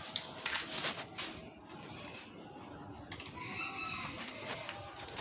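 Chickens clucking, with short pitched calls in the second half. A cluster of sharp clicks in the first second or so is the loudest part.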